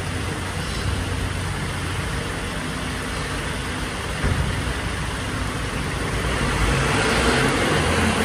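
Mercedes-Benz Arocs garbage truck's diesel engine idling, with a knock about four seconds in, then growing louder from about six seconds in as the truck pulls away.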